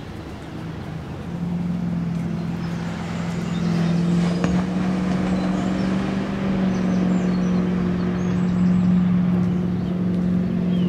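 An engine droning steadily at one pitch, growing louder over the first four seconds and then holding.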